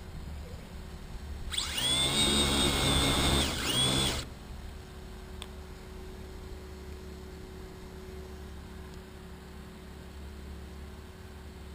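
An RC drag car's brushless electric motor spins up to a high whine for under three seconds, dipping briefly in pitch near the end, then cuts off abruptly.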